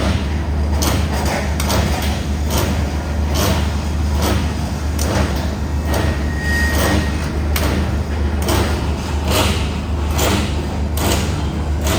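Reinforced concrete pipe cage welding machine running: a steady low electrical hum under regular sharp clacks, roughly three every two seconds, as it works through its welding cycle.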